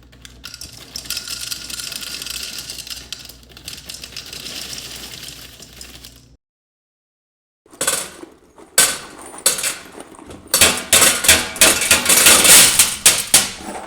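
A hissing, rushing noise lasting about six seconds that cuts off suddenly. After a second's pause comes a quickening run of sharp clinks and clattering knocks of hard objects against metal or a dish.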